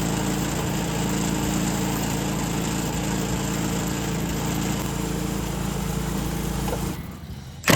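Portable bandsaw sawmill running steadily with its small engine at speed while the blade rips through the cut, stopping suddenly about seven seconds in.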